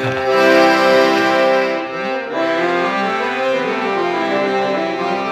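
Accordion playing a tune in sustained chords.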